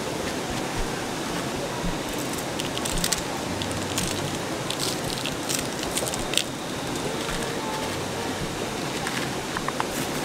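River water rushing steadily, with scattered short clicks and taps over it, most of them in the middle and near the end.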